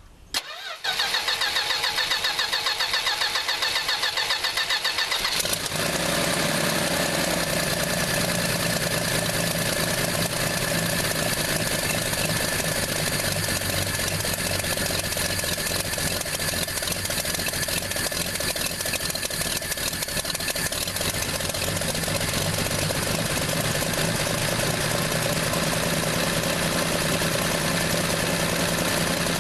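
1968 Plymouth Valiant slant-six engine cold-started after sitting for several months: the starter cranks it rhythmically for about four and a half seconds, then it catches and runs steadily.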